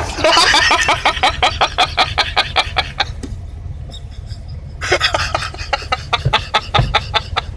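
A person laughing hard in rapid, rhythmic bursts. The laughter stops for about two seconds in the middle, then starts again.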